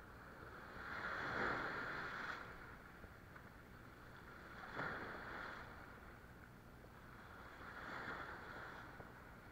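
Sea waves washing over shoreline rocks, coming in three surges of foaming water about three seconds apart, each building and fading.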